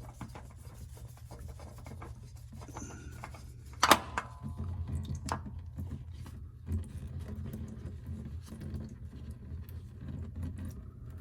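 Rubbing and handling noises of parts and tools being worked by hand, with one sharp clink and a brief ring about four seconds in, over a low steady hum.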